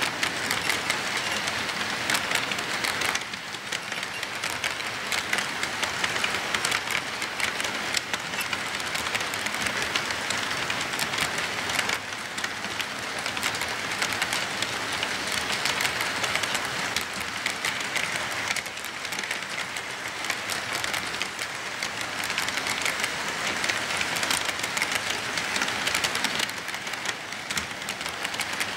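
HO-scale model freight cars rolling past on the track, their small wheels making a steady rattling hiss full of fine clicks.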